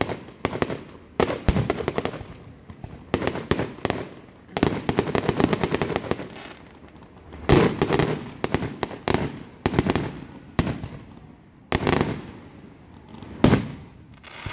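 Aerial fireworks shells bursting overhead: dense runs of rapid crackling and popping, broken by several heavy single booms, the strongest about halfway through and near the end.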